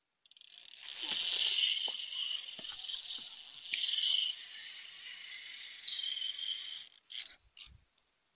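Fishing reel's drag screaming in a long high-pitched buzz as a big fish strips line off a rod that has just had a bite. The buzz swells and dips, stops about seven seconds in, then gives a few short spurts.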